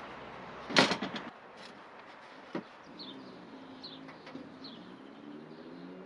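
A sharp knock about a second in, followed by a lighter click, while a small bird chirps a few short, falling notes.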